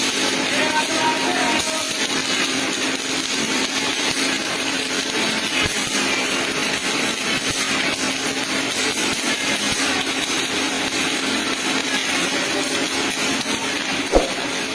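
MIG (gas metal arc) welding arc crackling steadily as the wire feeds into the weld, with one sharp knock near the end.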